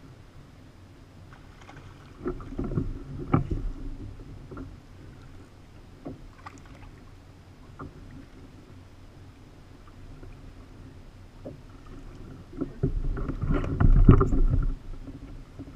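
Bumps, knocks and water splashing on a fishing kayak while a hooked tautog is reeled in and netted, with two louder stretches of clatter and splashing, about two seconds in and again near the end, and scattered single clicks between them.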